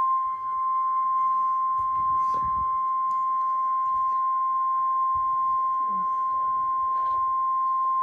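NOAA Weather Radio 1050 Hz warning alarm tone, a single steady high beep that starts abruptly and holds unchanged, played through a laptop speaker. It is the alert signal that comes before a warning broadcast, here a severe thunderstorm warning.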